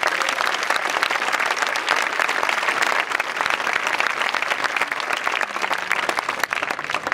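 Audience applauding: many hands clapping in a dense, steady clatter that begins to ease off at the very end.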